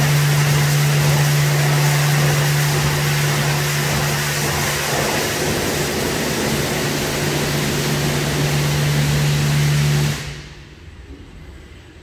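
WashTec SoftCare2 Pro rollover car-wash gantry running: a loud steady machine hum under the hiss of spraying water, which stops abruptly about ten seconds in.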